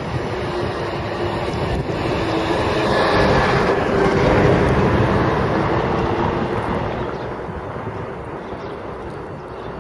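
GM-built Irish Rail Class 071 diesel-electric locomotive running as it shunts slowly through the yard, its two-stroke EMD 645 diesel engine swelling to its loudest a few seconds in, then easing off.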